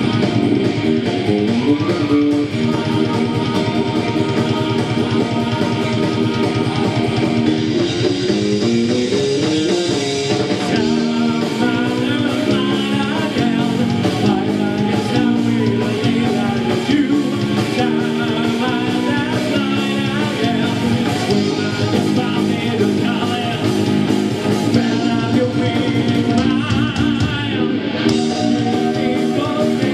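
A live melodic heavy metal band playing at full volume: guitars, bass and drums, with a male lead singer's voice over them.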